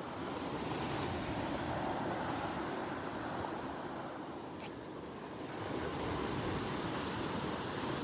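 Ocean surf washing onto the beach, a steady rushing hiss that eases a little about halfway through and then swells again.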